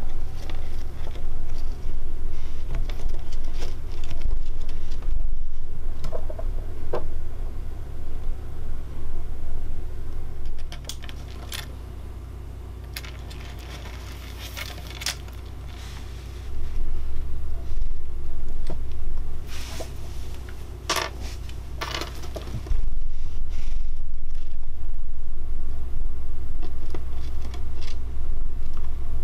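Richardson's ground squirrel moving about in a wooden hide: claws scraping and pattering on the wooden floor and rustling wood shavings, in scattered short scratches and clicks. A steady low rumble runs underneath and drops away for a few seconds midway.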